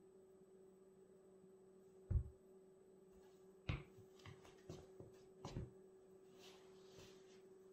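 Vans Old Skool sneakers on a wooden floor: a heavy thud about two seconds in as the raised foot comes down, a sharper knock a little later, then several light taps and scuffs of the rubber soles. A faint steady hum runs underneath.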